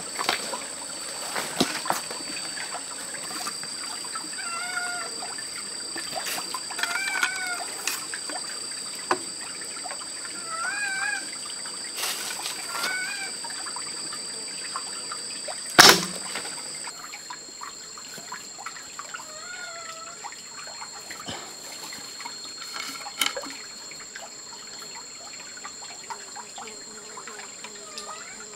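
Forest ambience: a steady high insect drone over a trickling stream, with a short wavering call repeated several times and scattered light knocks. About halfway through, one loud sharp snap of a homemade bamboo crossbow being shot.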